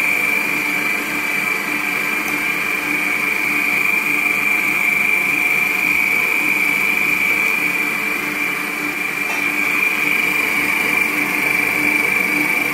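Electric 1000 W stand mixer running at a steady speed with a high, even whine, whisking eggs and sugar in its stainless steel bowl.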